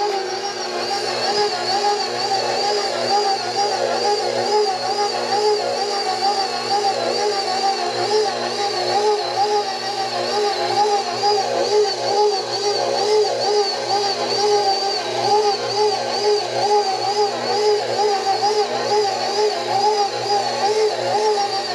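KitchenAid stand mixer's motor running steadily on its lowest speed, turning a dough hook through stiff pizza dough. Its whine wavers regularly in pitch as the hook goes round the bowl.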